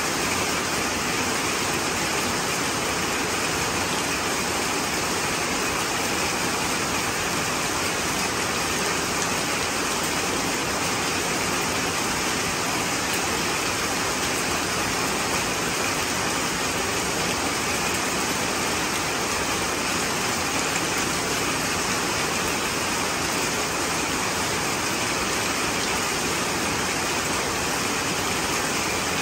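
Rain falling steadily in a downpour, an even rushing noise that does not let up.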